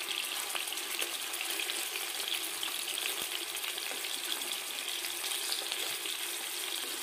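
Marinated fish pieces shallow-frying in a little oil in a non-stick frying pan over a medium flame: a steady sizzle with small crackles.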